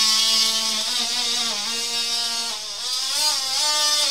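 Handheld power tool cutting an opening in a wooden ceiling. Its motor whines at a steady pitch that sags several times as the cut loads it and then recovers.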